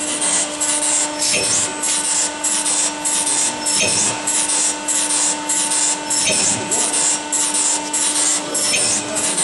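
Barwell ECO5HPlus rubber preforming machine running on silicone: a short hiss repeats about twice a second over a steady mechanical hum, with a sharper click every two to three seconds.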